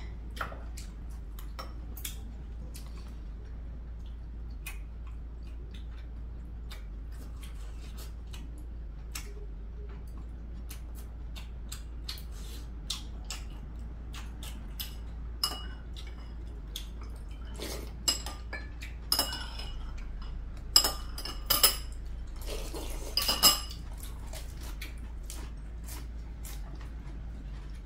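Metal chopsticks and spoons clinking against ceramic bowls and plates at a meal table: scattered light clicks, with a run of louder, ringing clinks in the second half.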